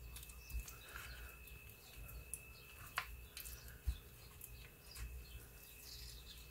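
Faint, soft sounds of hands rubbing lime juice into raw pork chops on a glass cutting board, with two light taps about three and four seconds in.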